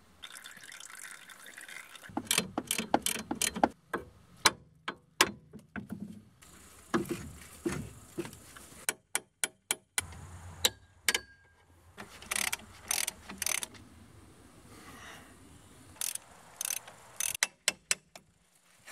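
A thin stream of fluid draining from under the car, heard for about the first two seconds. Then comes a long run of sharp metallic clicks and knocks, in quick irregular groups with short pauses, from hand tools working a rusted brake caliper and its bolts off the front wheel hub.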